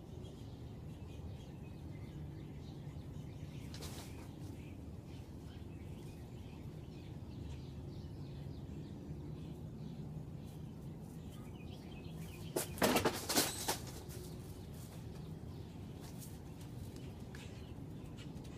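Steady low background noise with a faint click, then, about two-thirds of the way through, a brief cluster of loud scuffling sounds lasting about a second as a red-tailed hawk struggles with live prey on the pen floor.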